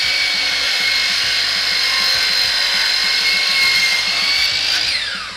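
DeWalt 12-inch sliding compound miter saw running at full speed with a steady whine as the blade cuts a compound miter through a wooden handrail, then the motor is released and the whine falls as the blade spins down near the end. The blade is dull and due for replacement, by the owner's own mark.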